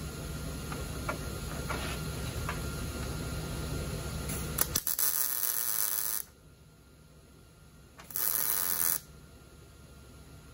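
Two short bursts of MIG tack welding, a hissing crackle about 1.4 s and then 0.8 s long, after a few seconds of low steady hum.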